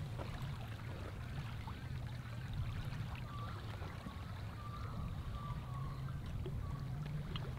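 Wind rumbling on the microphone over small waves lapping at a lake shore, with a few faint short chirps in the middle.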